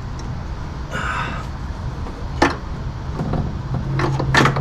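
Handling noise as an LED low-beam bulb is fitted into a car's headlight housing: a brief rustle, then two sharp plastic clicks, over a steady low hum.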